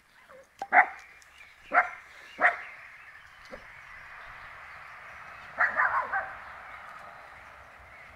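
Springer spaniel puppies barking in play: three sharp yaps about a second apart, then a quick run of yaps around six seconds in.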